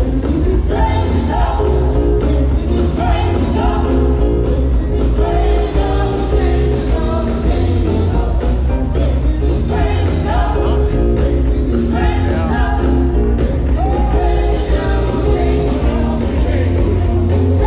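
Live performance by a choir and band: voices singing over keyboards, bass and a steady rock beat.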